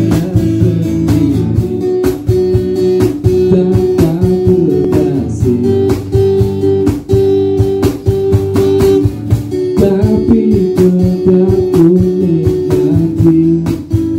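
Acoustic guitar strumming a song's instrumental intro, with a cajón keeping a steady beat under it.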